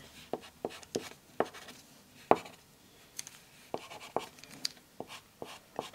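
Corner of a chocolate bar drawing on paper: short scratchy strokes and light taps at an uneven pace, with one sharper tap a little past two seconds in.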